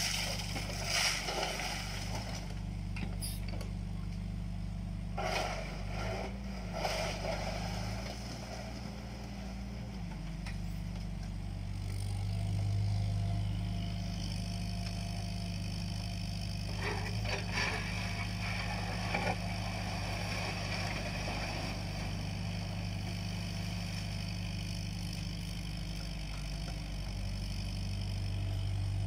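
Diesel engine of a JCB 8050 mini excavator running steadily under hydraulic load, its note swelling for a stretch partway through. Its bucket scrapes and clatters in the soil and stones several times as it digs and dumps.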